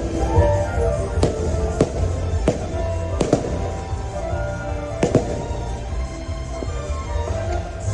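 Fireworks going off in a string of sharp bangs, roughly eight in the first seven seconds, over continuous holiday show music.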